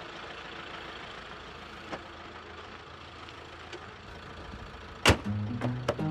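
Fiat motorhome's engine idling steadily, then a loud single bang about five seconds in as its hood is slammed shut. Music with a low beat starts just after.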